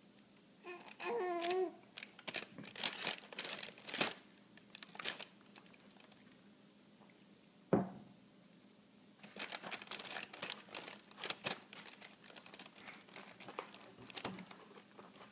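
Clear plastic bag of chips crinkling in irregular crackly bursts as a baby rustles it, with a single sharp knock about halfway through. A brief baby coo comes about a second in.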